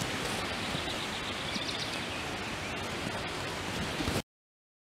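Steady outdoor background hiss with a few faint high chirps about a second and a half in. It cuts off to silence near the end.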